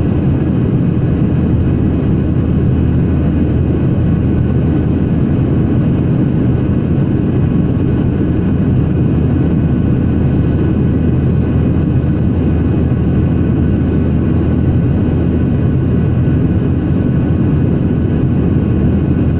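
Steady engine and airflow noise of a jet airliner in flight, heard from inside the passenger cabin: an even, low rush with a few faint steady whining tones above it.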